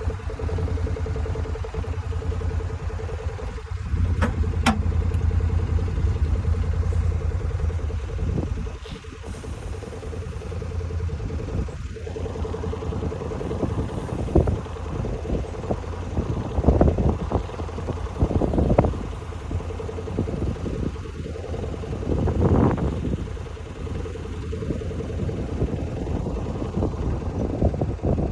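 An engine running steadily, with irregular clattering and knocking over it, mostly in the second half.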